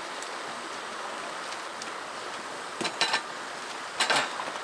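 Steady rush of running stream water, with short clusters of clattering metal knocks about three and four seconds in as a black frying pan is handled and shifted on a portable gas cassette stove.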